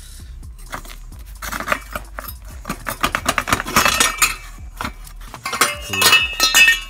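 Cut-apart metal BMX bike frame clinking and rattling against itself and the concrete as it is handled, in three clusters of irregular clinks with a metallic ring near the end.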